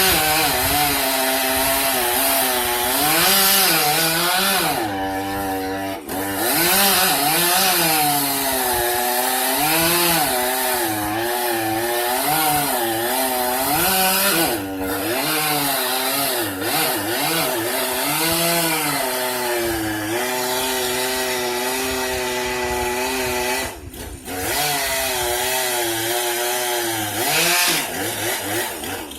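Chainsaw cutting through tree limbs, the engine revving up and down as it bites into the wood, dropping off briefly twice.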